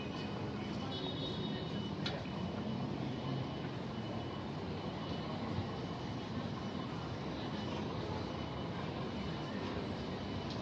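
Steady city street noise: a continuous low rumble of traffic and engines.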